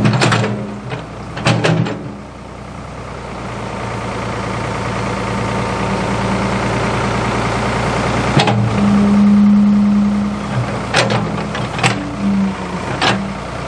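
Ford 555 backhoe's diesel engine running as it works. The engine note builds gradually and is strongest a little past the middle. Sharp knocks and clanks come in the first two seconds and again near the end.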